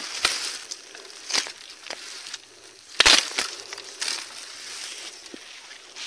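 Dry bamboo twigs and leaves rustling and crackling as a hand pulls and breaks through a bamboo clump, with several sharp snaps, the loudest about three seconds in.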